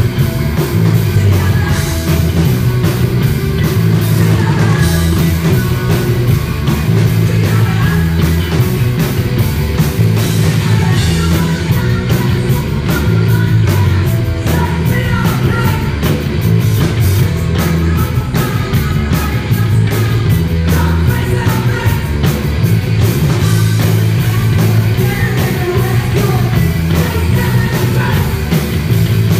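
Live punk rock band playing loud, with a woman singing into a microphone over a heavy, pulsing bass and a steady drum beat.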